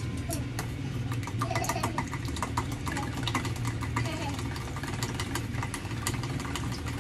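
Wooden chopsticks beating a raw egg in a stainless steel bowl: quick, irregular clicks and taps of the chopsticks against the metal, over a steady low hum.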